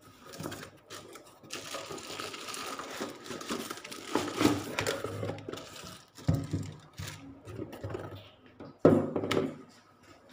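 Cardboard box flaps and plastic wrapping crinkling and rustling as a small welding machine is unboxed and lifted out, with a few knocks in the second half as the unit is handled and set down, the loudest a little before the end.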